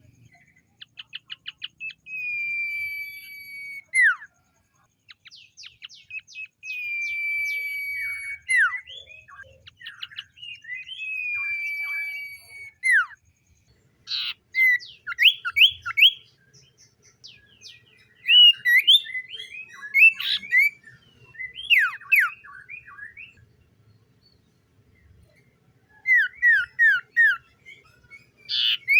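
Common iora singing: three long, level whistles of about two seconds each, each ending in a quick downward drop, with a rapid trill of short notes after the first. From about halfway it switches to quick runs of short down-slurred chirps, and after a short pause gives a run of four down-slurred notes near the end.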